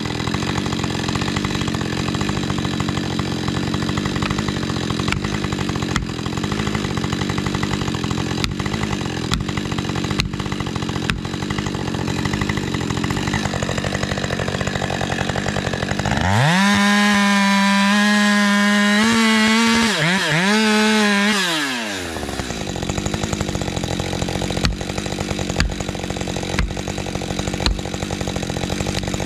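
Husqvarna 550 XP Mark II two-stroke chainsaw running under load in wood for about 16 s. It then revs up high and clean for about five seconds, dips briefly in the middle, and drops back to the lower, rougher running of cutting.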